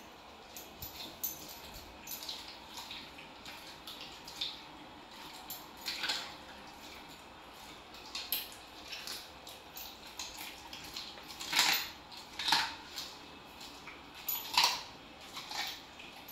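A Rottweiler licking the floor and padding about on tile, its nails clicking, in scattered short clicks and taps. A few louder clacks come in the last few seconds.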